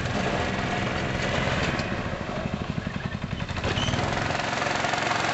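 Yerf-Dog go-kart's small engine running as the kart drives across a dirt field.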